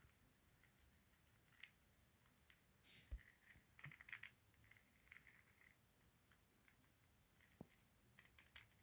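Near silence with faint scattered clicks and scratches, a small flurry of them about three to four seconds in and a few more near the end.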